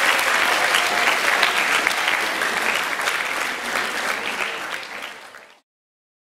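A class audience clapping, a dense patter of many hands. It fades out and cuts off to silence about five and a half seconds in.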